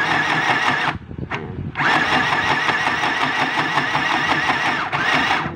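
Mini sewing machine stitching fabric: its small motor runs with a steady whine and a fast even ticking. There is a run of about a second, a brief blip, then a longer run of about three and a half seconds that stops near the end, switched on and off by pressing the foot pedal by hand.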